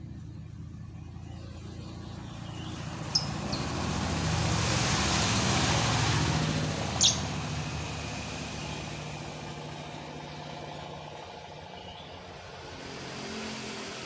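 A motor vehicle passing, its noise swelling about four seconds in and fading slowly, over a steady low hum. Three brief shrill chirps from lovebirds cut through, the loudest about seven seconds in.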